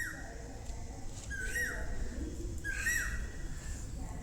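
A bird calling repeatedly, a short call that rises then drops, about every one and a half seconds, three times.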